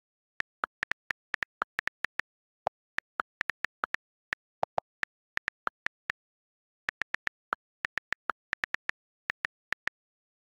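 iPad on-screen keyboard clicks, one per key tap, in quick irregular runs with short pauses as a sentence is typed. A few of the clicks are lower in pitch than the rest, and there is dead silence between them, as in audio taken straight from the device.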